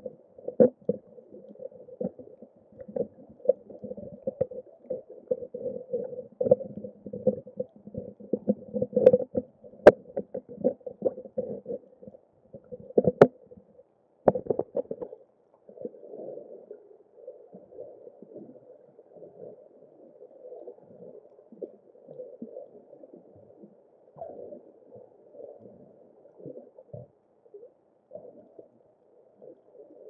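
Muffled underwater sound picked up through a camera's waterproof housing: irregular sloshing and rumbling of water moving around the camera, with a few sharp clicks about ten and thirteen seconds in. The sound is busier in the first half and quieter after.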